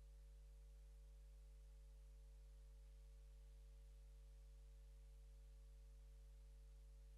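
Near silence with a faint, steady low hum; no crowd or finish-line sound comes through.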